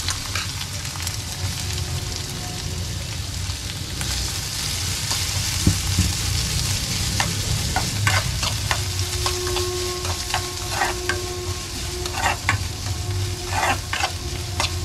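Chopped onion and ginger sizzling in hot mustard oil in a pan, the sizzle growing louder about four seconds in. From about seven seconds on, a spatula scrapes and clicks against the pan as it stirs.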